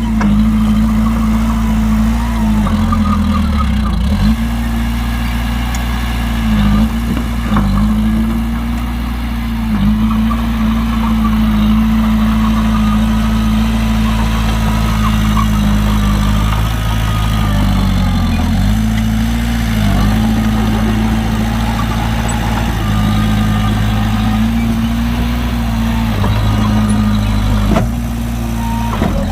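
Heavy diesel engine of earth-moving equipment running hard and steady, its pitch sagging briefly several times as it takes load, most deeply a few seconds in and again about two-thirds of the way through.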